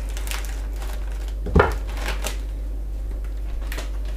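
Light clatter of kitchen things being handled and set down on a counter, with one heavier knock about a second and a half in, over a steady low hum.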